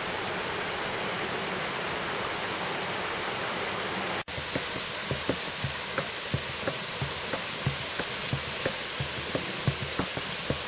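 Water cascading over rocks in a small garden waterfall: a steady rush, with quick gurgling plops coming thick and irregular from about four seconds in.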